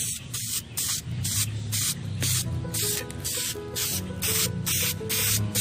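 Aerosol can of Dupli-Color vinyl and fabric spray paint spraying in short, repeated hisses, about two a second, over background music.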